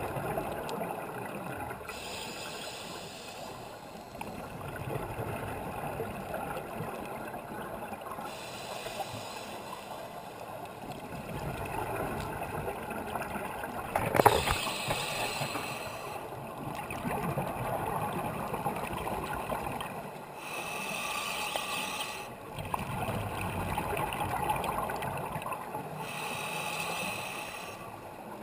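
Scuba breathing through a regulator, heard from inside an underwater camera housing: a hiss comes about every six seconds, with bubbling and water noise between. There is one sharp knock about halfway through.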